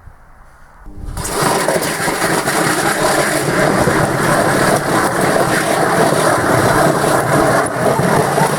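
Washing machine running hard and loud, starting abruptly about a second in: a dense, steady mechanical din with constant fine rattling and knocking.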